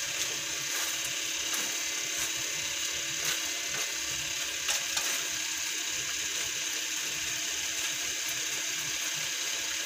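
A wooden spatula stirring and scraping through a thick coconut-milk stew in a nonstick wok, over a steady hiss of the sauce simmering, with a few light ticks now and then.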